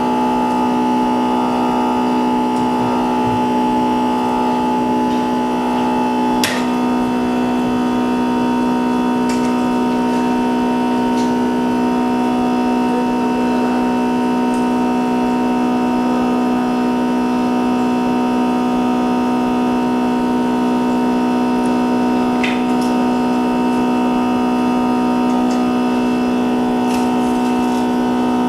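Steady machine hum at one unchanging pitch with many overtones, with a few faint light clicks now and then.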